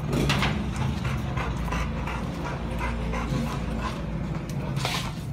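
Large dogs panting close by in quick, repeated breaths, with a steady low hum underneath.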